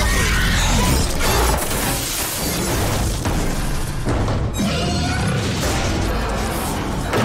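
Horror-film soundtrack: a loud, tense score with several crashes and bangs through it.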